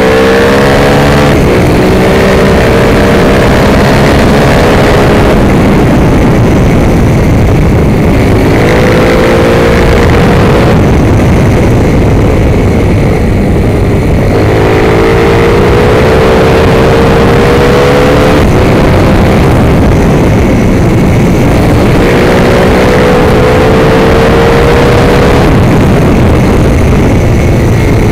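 Racing motorcycle engine heard from an onboard camera under heavy wind rush on the microphone, its pitch rising under acceleration four times, with stretches in between where the wind noise dominates.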